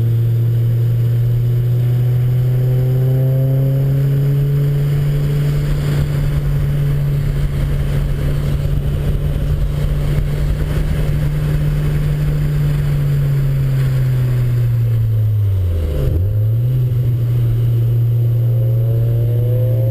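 Car engine heard from inside the cabin, pulling under load with a steady, slowly rising note. About fifteen seconds in its pitch drops sharply as the car slows, then jumps back up and climbs as it accelerates again.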